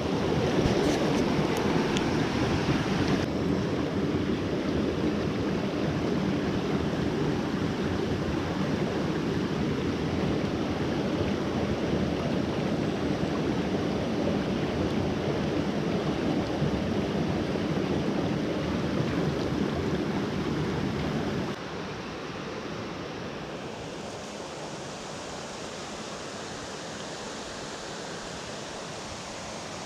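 Creek water rushing, a steady noise that drops suddenly to a lower level about twenty seconds in.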